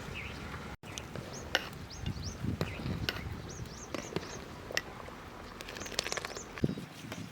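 Small birds chirping repeatedly in short, high, hooked calls over a soft outdoor background, with scattered sharp clicks and knocks, the loudest about a second and a half in.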